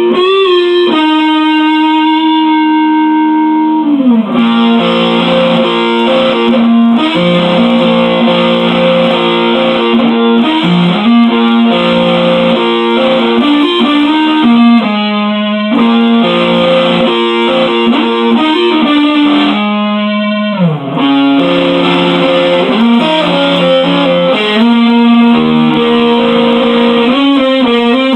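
Electric guitar playing a wordless instrumental through effects: held notes in a repeating pattern, with slides down in pitch about four seconds in and again about two-thirds of the way through.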